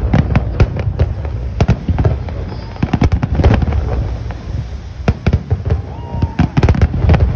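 Aerial firework shells bursting in quick succession: sharp bangs over a continuous low rumble, bunched in rapid flurries around three seconds in and again later.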